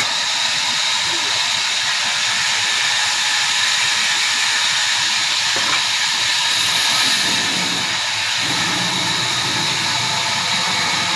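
Large sawmill saw running through a walnut log, a steady hissing machine noise with a faint high whine held throughout.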